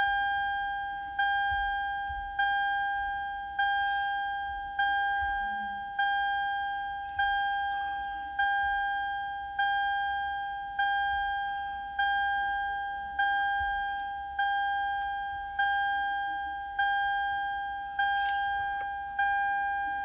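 A car's electronic warning chime dinging steadily, one single-pitched ding about every 1.2 seconds, each fading away before the next.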